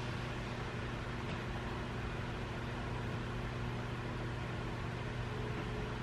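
Steady low machine hum with a hiss over it, unchanging throughout.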